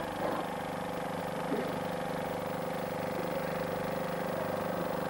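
An engine idling steadily as a constant low hum, with faint voices now and then.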